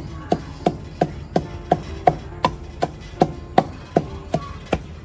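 Wooden pestle pounding fresh green leaves in a wooden mortar: steady, even knocks about three a second.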